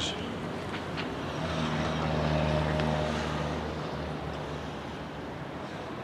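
A low engine hum swells and fades away again between about one and a half and four seconds in, steady in pitch, over steady outdoor background noise.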